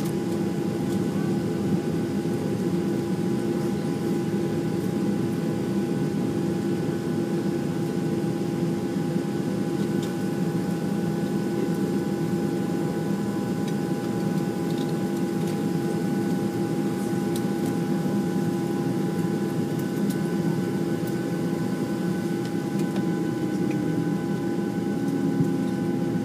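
Steady cabin drone of a Boeing 737-700 taxiing on the ground, heard from a window seat over the wing: the engines at idle and the air-conditioning hiss, with a few steady whining tones held throughout.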